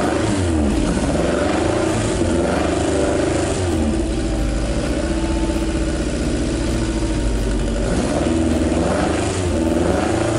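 Toyota 4A-G twin-cam four-cylinder engine, running on an engine stand with quad side-draft carburetors and a straight-pipe exhaust, revved by hand on the throttle linkage. It is blipped up and back down several times, holding a steady speed in between.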